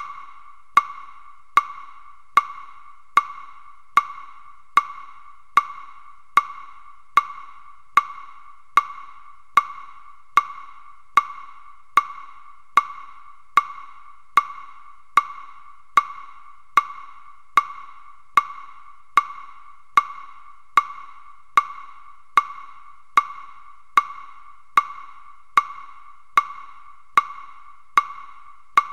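Buddhist wooden fish (muyu) struck at a slow, even tempo, about one knock every 0.8 seconds, each knock with a brief pitched ring. It keeps the beat for sutra chanting, one character per stroke.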